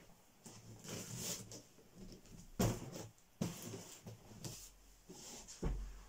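A cardboard box being handled and set down on a wooden table: a few separate knocks and scrapes with cardboard rustling, the loudest a little over two and a half seconds in.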